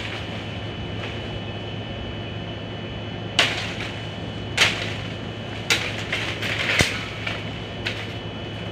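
Bolo knife (itak) hacking at a tree branch: about five sharp chops roughly a second apart, starting about three seconds in, over a steady low hum.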